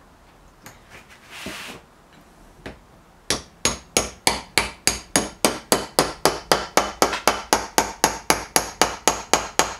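Steady light hammer taps, about four a second, starting about a third of the way in, driving a double set of small ball bearings home into a Look Keo 2 Max pedal. Before the tapping there are a few faint knocks and a short scrape.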